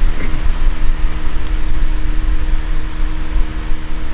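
Electric fan running close to the microphone: a steady motor hum with rushing air and a strong, uneven low rumble.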